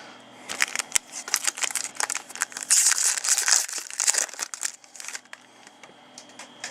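Crinkling and tearing of a trading card pack's foil wrapper, loudest for about two seconds near the middle, with scattered clicks and rustles of cards being handled before it.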